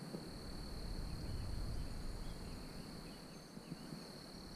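Faint steady high-pitched trill of crickets, with a low rumble on the microphone underneath.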